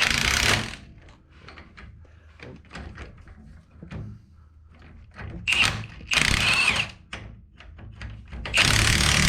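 Garage work on a truck's front axle: small metal clicks and knocks, broken by short loud bursts of a power tool, and near the end a longer burst that runs steadily.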